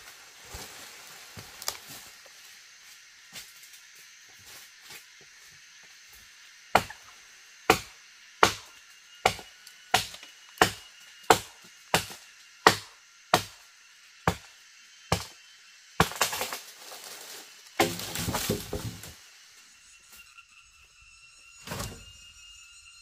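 Wood being chopped with a steady run of about a dozen strokes, roughly one every 0.7 seconds, then wood cracking and splintering as it breaks, and a single thud near the end.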